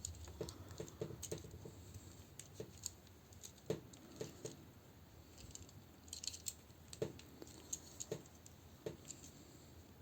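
Faint, scattered clicks and taps of hard plastic action-figure parts being handled and plugged together.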